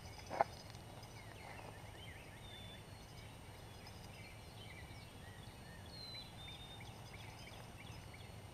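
Faint dawn chorus of birds: many short, scattered high chirps and whistles. A sharp click about half a second in is the loudest sound.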